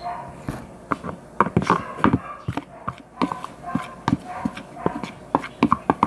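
Teaspoon knocking and clicking against a bowl while a thick flour-and-shampoo slime mixture is stirred: a string of irregular taps, a few a second.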